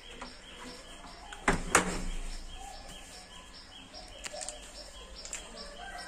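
Two sharp knocks about a second and a half in, with a few lighter clicks later, over a faint high chirping that repeats about three times a second.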